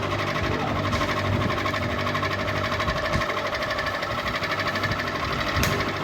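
Ceiling fan running with a fast, even mechanical rattle, with one sharp click near the end.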